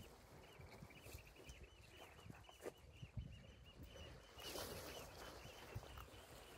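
Near silence: faint outdoor wind and sea noise, with a faint, fast, even series of high chirps running through it and a brief rush of noise about four and a half seconds in.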